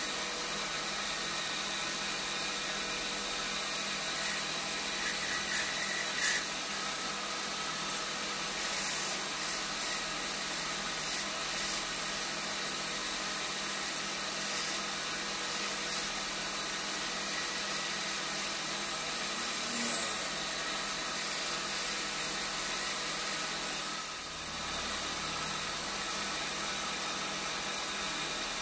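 Electric wood lathe running steadily while a hand chisel cuts the spinning wooden workpiece.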